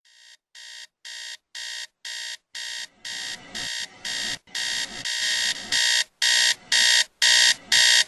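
Electronic alarm beeping about twice a second in short, shrill, evenly spaced beeps that grow steadily louder.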